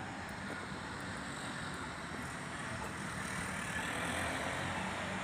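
Steady road traffic noise from the surrounding streets, swelling slightly about three seconds in.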